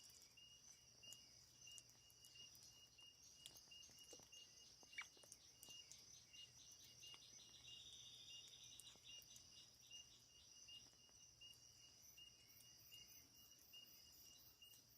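Near silence with faint insects chirping: a short high chirp repeating about twice a second over a steady high hiss, with a few faint clicks.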